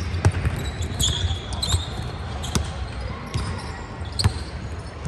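Basketballs bouncing on a hardwood gym floor in irregular thuds, with a few short high squeaks about a second in.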